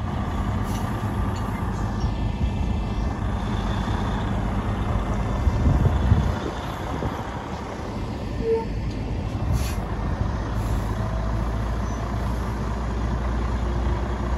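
Semi truck's diesel engine running steadily under load as the tractor-trailer reverses slowly, swelling briefly about six seconds in. A short hiss of air comes near the ten-second mark.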